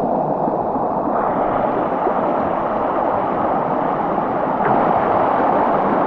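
Creek water rushing over rocks, a loud, steady rush close to the microphone.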